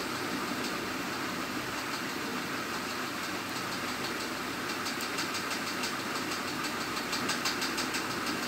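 Steady mechanical hum of a running motor, with a faint rapid ticking over it for much of the time.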